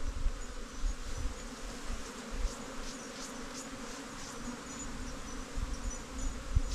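Bees buzzing in a steady low hum.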